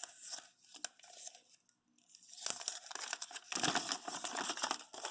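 Thin plastic Lego polybag crinkling and rustling as it is handled and pulled open. A few light clicks come first, then a short pause, then steady crinkling through the second half.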